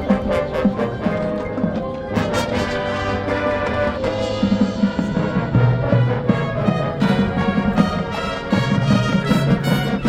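High school marching band playing: brass chords over percussion, with mallet percussion striking through the passage.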